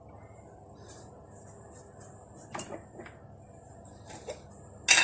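A few sharp clicks and knocks of kitchen utensils and containers being handled, the loudest just before the end, over a steady faint hiss.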